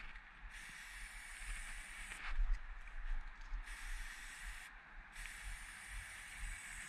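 Aerosol spray paint can hissing as silver chrome paint is sprayed onto a brick wall, in three long bursts with short breaks between, the last running on to the end.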